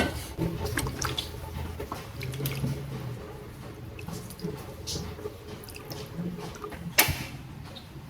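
Water dripping and running with scattered light clicks and knocks, and one sharper knock about seven seconds in; a faint low hum underneath.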